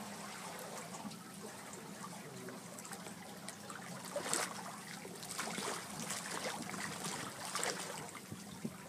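Sea otter paddling and splashing in calm water beside a boat, making light splashes and trickling. The loudest splash comes about four seconds in, with more splashes after.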